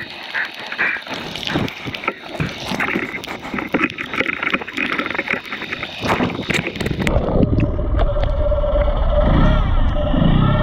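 Underwater crackling with many sharp clicks, then about seven seconds in a boat's outboard motor comes in, heard underwater as a steady low rumble with a held whine that grows louder.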